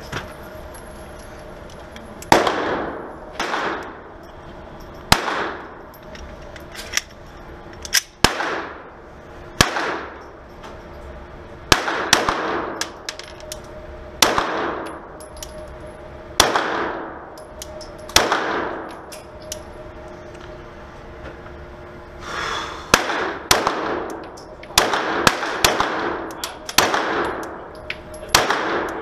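Glock 17 9mm pistol firing on an indoor range, one-handed as a function check of the slide build. Single shots come a second or two apart, then faster strings of shots near the end, each with a long ringing echo off the range walls.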